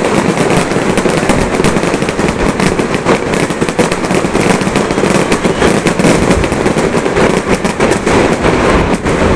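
Fireworks going off in a dense, continuous barrage of many small crackling bangs with no pause.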